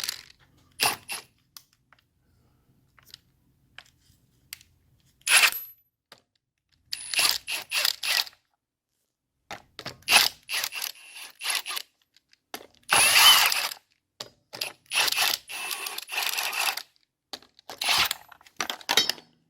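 Wheel lug nuts being loosened and spun off with a 19 mm socket: a series of short bursts of tool noise, the longest and loudest about two-thirds of the way through.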